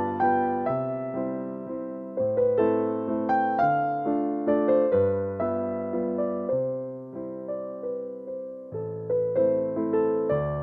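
Background music: a keyboard playing slow chords with a melody over them, each note struck and fading away.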